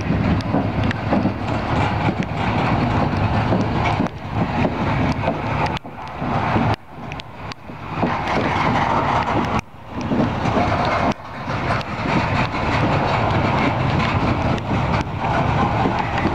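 Mostly empty steel coal hopper cars of a freight train rolling past at close range: steel wheels running on the rails with repeated clicks, and a few brief dips in the noise.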